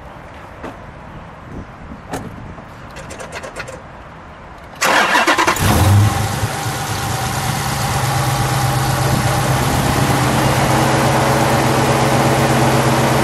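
The 6.4-litre 392 Hemi V8 of a 2012 Dodge Challenger SRT8 is started about five seconds in: a short burst of cranking, the engine catches with a brief flare, then it settles into a steady idle.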